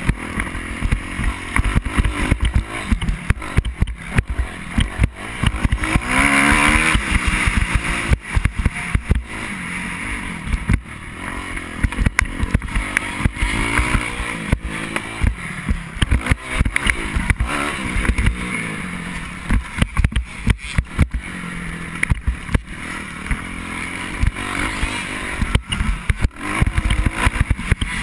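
Motocross bike engine revving up and down as it is ridden hard over a dirt track, its pitch climbing and falling with the throttle. Frequent knocks and thumps from the bumps run throughout.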